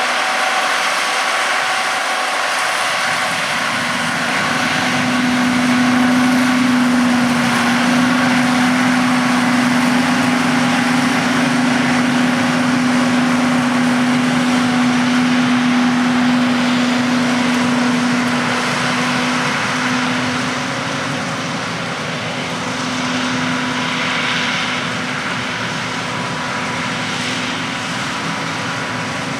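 Peanut harvesting machinery running steadily in the field, a peanut combine at work. A steady droning hum rises a few seconds in and drops back after about twenty seconds.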